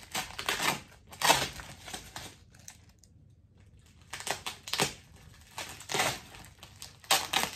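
Packaging rustling and crinkling in irregular bursts as packets are picked up and handled, with a quieter spell in the middle.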